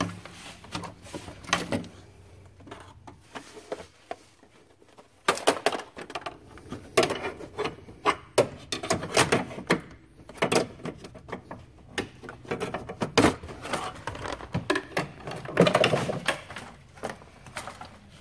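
Plastic clicks, knocks and rattles of a car's radiator fan shroud being unclipped and worked loose, irregular and sparse at first, then busier clatter from about five seconds in.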